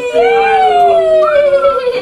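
Drawn-out cheering voices calling a long "yaaay", high held calls that glide slowly down in pitch, with two voices overlapping.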